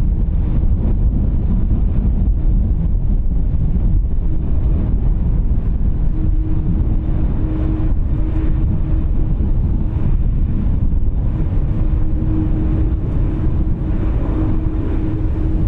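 Steady low rumble of an Airbus A330-203's General Electric CF6-80E1 jet engines, mixed with wind buffeting the microphone. A steady hum comes in about six seconds in.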